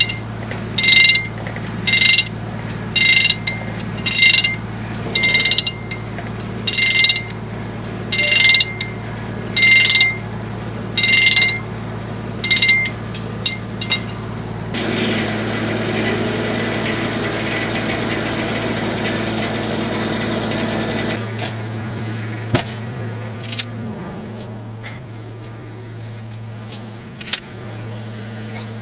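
Tractor-powered homemade circular sawmill running with a steady low engine hum. For the first half about a dozen short, ringing bursts come roughly once a second; then comes a noisier stretch of about six seconds before the hum goes on alone.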